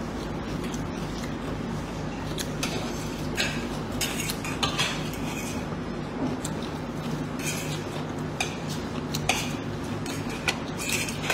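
Metal fork and spoon clinking and scraping on a ceramic plate of rice, in irregular separate clicks, over a steady low hum.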